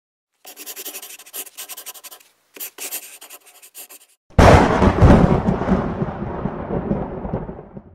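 Logo intro sound effects: two runs of quick scratchy scribbling strokes, then a single deep boom a little after four seconds that is the loudest sound and slowly dies away.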